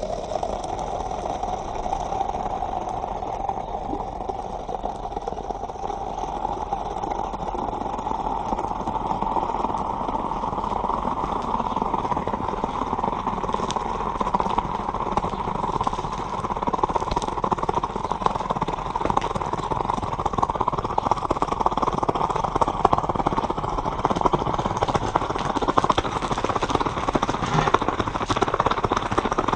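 Coconut water boiling violently under molten metal poured into a coconut: a rough, steady seething and spitting whose pitch rises over the first ten seconds or so, growing denser and more crackly toward the end as liquid spatters out.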